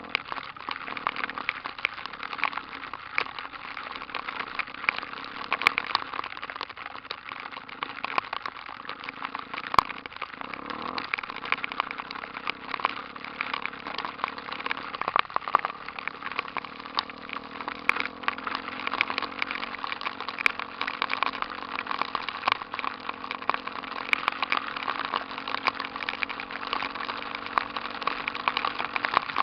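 Honda Tornado single-cylinder motorcycle engine, bored out to 293 cc, running steadily, with a crackly noise on top.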